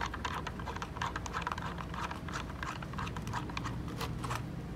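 Quick, irregular small clicks and taps of fingers handling a small metal hex-socket cap and threading it into a hole in the ARB differential breather's metal mounting block.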